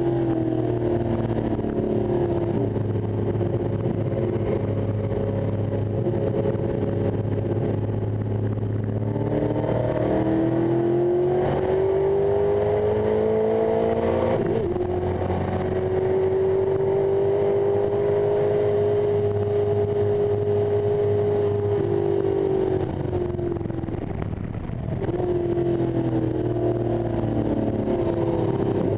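1973 Ford XA Falcon coupe race car's engine at racing speed, heard from inside the cabin: the note climbs under acceleration, holds high and steady along a straight, eases off with a dip in loudness for a corner about three quarters through, then climbs again near the end.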